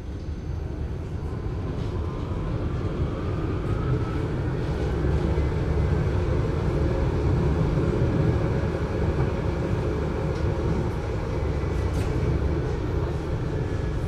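Adtranz GT6M low-floor tram setting off and gathering speed: an electric drive whine rising in pitch over a rumble of running gear that grows louder for the first few seconds, then holds steady at speed. The recording is heavily muffled.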